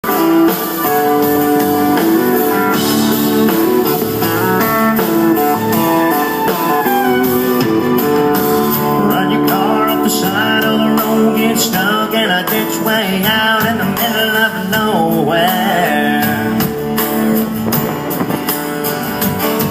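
Country band playing live, with guitar leading an instrumental intro before the vocals come in.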